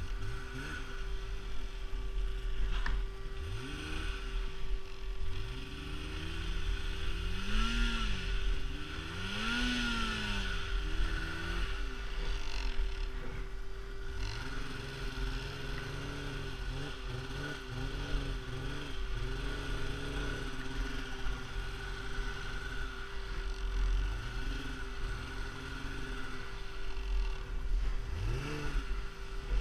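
Polaris snowmobile engine revved up and down in repeated short bursts of throttle through the first dozen seconds, then held at a steadier throttle with small rises and falls, and revved once more near the end. A steady whine runs over the engine throughout.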